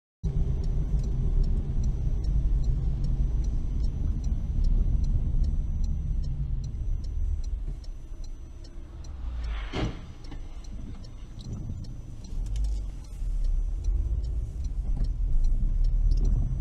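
Car driving, heard from inside through a dashcam: a steady low rumble of engine and tyres with faint, evenly spaced ticks. A brief sharp sound stands out about ten seconds in.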